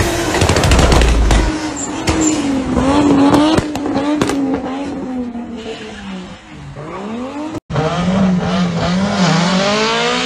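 Car engines revving hard, their pitch sweeping up and down again and again. The sound cuts out briefly about three-quarters of the way in, then the revving picks up again.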